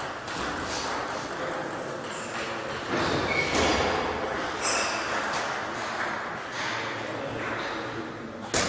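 Celluloid table tennis balls ticking off bats and tables in a quick series of sharp clicks, with voices murmuring in the background.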